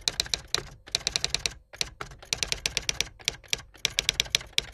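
Rapid typing keystrokes, clicking in quick runs of several strokes with short pauses between the runs.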